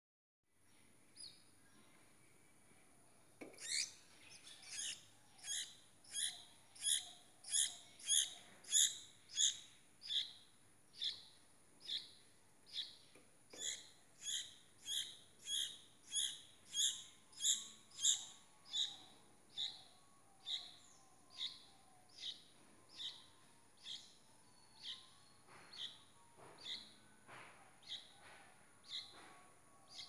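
A small bird chirping over and over, a high short chirp about one and a half times a second, starting a few seconds in and slowing and fading a little toward the end.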